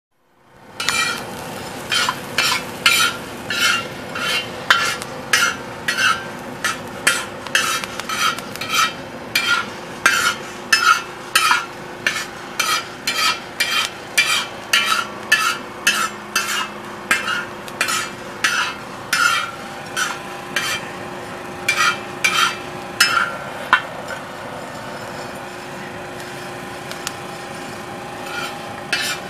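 A spatula scraping and stirring coffee beans around a steel disco (plow-disc cooker) during roasting, in raspy strokes about two a second. The strokes stop for a few seconds near the end, leaving a steady hum underneath.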